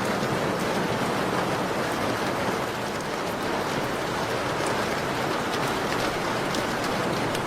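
Steady rain falling, an even hiss with faint scattered ticks of drops or crackles.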